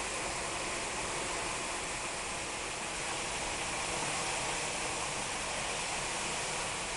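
Storm of heavy rain and strong wind, a steady rushing hiss with no breaks.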